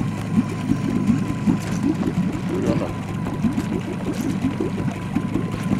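Boat's outboard motor running steadily at slow trolling speed.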